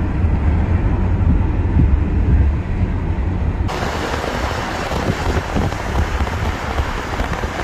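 Car road noise: a steady low rumble of a car driving at highway speed. About three and a half seconds in it cuts abruptly to a different, hissier rushing noise.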